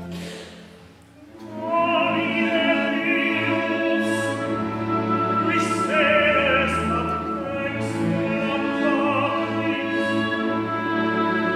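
A classical solo voice singing long notes with vibrato over a chamber orchestra. The music dips briefly at the start, and the voice comes in about a second and a half in.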